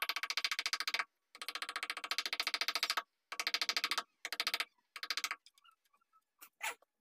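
Wooden mallet driving a carving chisel into a wooden bed panel: rapid runs of light strikes, about ten a second, broken by short pauses, thinning to a few single taps near the end.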